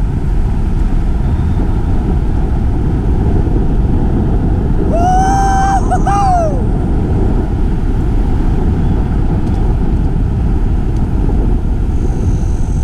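Mountain bike ride heard at speed: a loud, steady rush of wind buffeting the microphone, mixed with tyre noise. About five seconds in, a high squeal holds for about a second and a half and then drops away.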